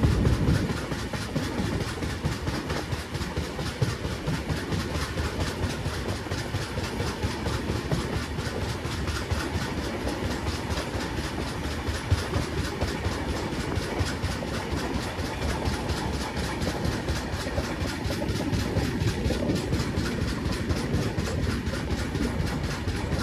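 Express passenger train running at speed, heard at an open coach doorway: the steady running noise of the coach's wheels on the track, with no letup.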